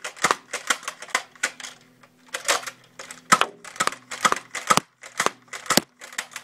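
Nerf dart blaster slam-firing: the slide is pumped over and over with the trigger held down, each stroke a sharp clack and shot, about three a second, with a short pause about two seconds in.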